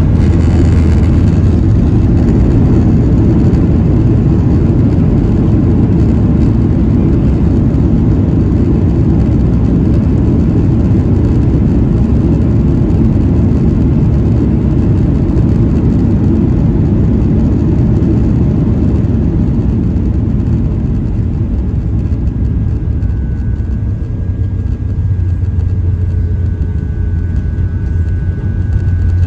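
Boeing 737-800's CFM56-7B engines heard from inside the cabin as a steady, loud low rumble that eases off over the last third, with a faint high steady tone coming in near the end.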